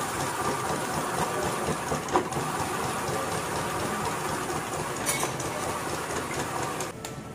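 Electric ice-shaving machine running, its blade shaving a block of ice into fine, powdery snow ice that falls into a hand-held bowl: a steady mechanical rasp with one sharp clink about two seconds in, cutting off near the end.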